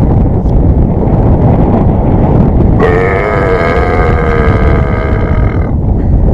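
Heavy wind buffeting the microphone, with one long, slightly wavering pitched call of about three seconds starting near the middle.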